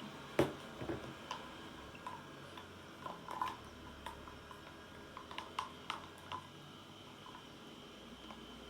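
Baby being fed from a cup: faint scattered ticks, clicks and small wet smacking sounds, a slightly louder one about three and a half seconds in.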